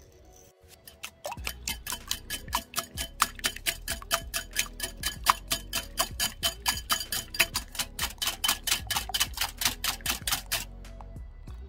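Wire whisk beating eggs in a glass bowl, its tines clicking against the glass about four or five times a second; the clicking starts about a second in and stops near the end.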